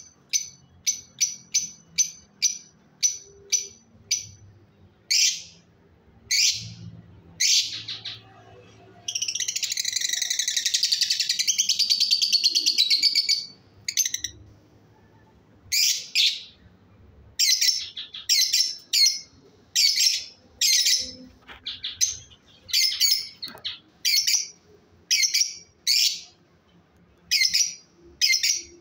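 Fischer's lovebird calling: short, sharp, high-pitched chirps in quick series, about two or three a second at first, then more spaced calls. About nine seconds in, a shrill continuous chatter lasts some four seconds before the separate chirps resume.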